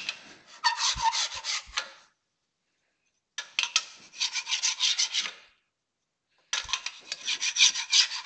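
Plastic scraper rubbed in quick strokes against the inside of a Glimek SD180 dough divider, scraping off dough residue, in three bouts with short pauses between.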